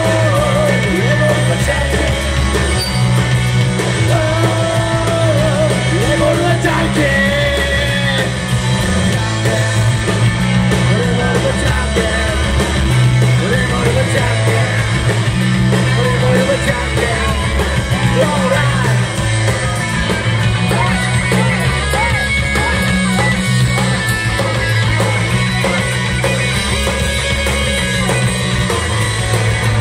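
A rock band playing live: a singer over electric guitar, bass guitar and drums, loud and continuous.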